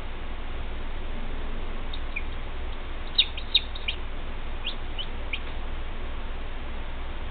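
Newly hatched chicks peeping: about ten short, high peeps in quick succession, starting about two seconds in, over a steady low hum.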